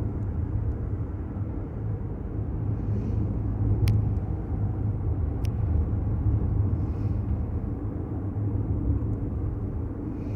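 A car being driven slowly, heard from inside the cabin: a steady low rumble of engine and road noise, with two faint clicks partway through.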